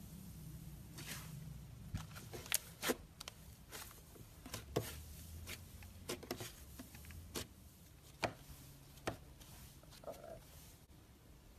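Slime being squeezed and poked by hand, giving a scattering of irregular sharp pops and clicks.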